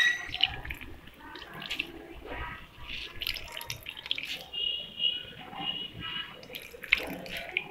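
Water trickling and dripping into a plastic bowl as grated potatoes are wrung out in a cloth, coming in irregular spurts.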